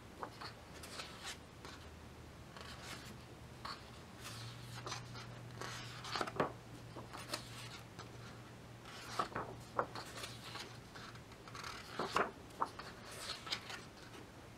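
Pages of a large hardcover photobook being turned one after another: a series of short paper rustles and swishes as hands lift and flip the heavy pages and smooth them flat.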